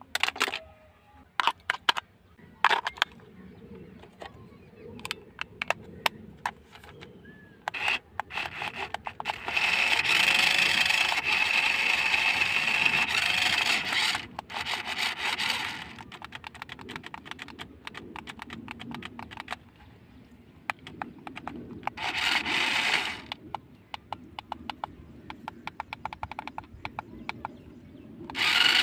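Clicks and rattles of plastic parts being handled, then a small electric motor runs with a steady high whine in bursts: about six seconds near the middle, about two seconds later on, and starting again at the very end.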